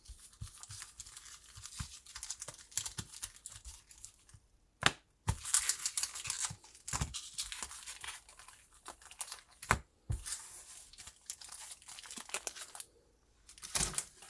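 Foil wrapper of a Pokémon card booster pack crinkling and tearing open, in irregular sharp rips and rustles with short pauses between them.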